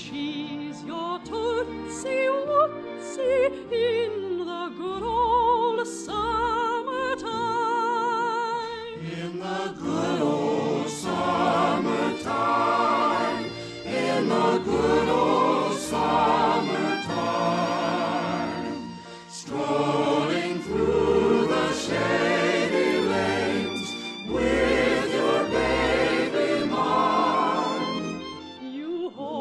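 A choir singing with orchestral accompaniment, full vibrato voices over a steady bass line, heard through an early-1950s radio broadcast recording.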